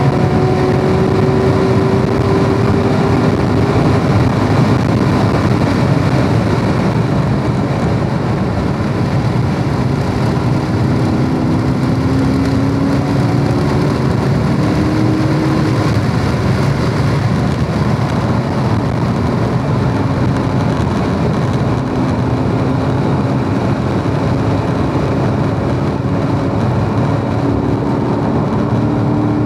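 2017 Corvette Grand Sport's 6.2-litre LT1 V8 pulling hard in fourth gear at track speed, heard from inside the cabin over steady wind and road noise. The engine note falls as the car slows for corners and rises again as it accelerates out.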